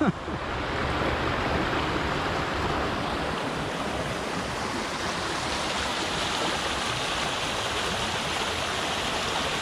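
Small rocky creek rushing over stones in a steady, even stream of water noise.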